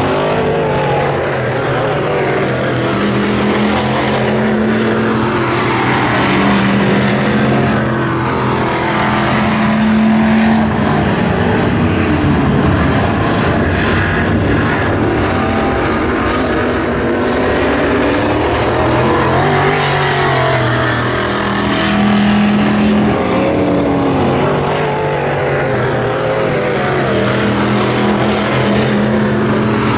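Dirt-track Midwest Modified race cars running on the track, their V8 engines rising and falling in pitch over and over as they accelerate and lift, with more than one car heard at once.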